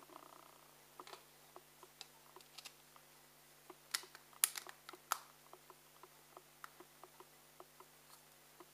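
Light plastic clicks and taps from handling the HTC Evo 3D phone while fitting its memory card, with a few sharper clicks close together about four to five seconds in.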